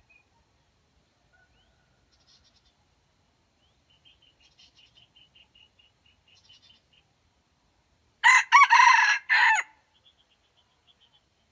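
Red junglefowl rooster crowing once, a short crow of about a second and a half broken into a few parts, about two-thirds of the way through. Faint rapid high trilling runs in the background before and after it.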